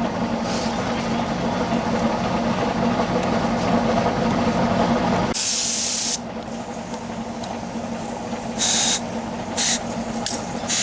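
Short bursts of hissing air over a steady low hum. The first and longest burst comes about five seconds in and lasts nearly a second; two shorter ones follow near the end.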